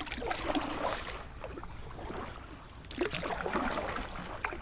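Kayak paddle strokes splashing in canal water, one at the start and another about three seconds in, with water trickling between them.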